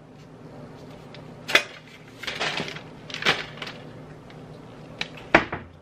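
Paper flour bag and plastic-wrapped flour bag being handled and set down on an electric stovetop: rustling, with a sharp knock about a second and a half in and another near the end.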